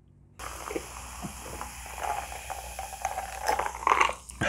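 Close-miked drinking from a glass of iced cola: small clinks and mouth sounds, then louder swallowing gulps near the end.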